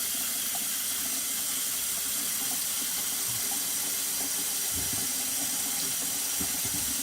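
Tap water running steadily into a sink basin that drains slowly because its drain is clogged.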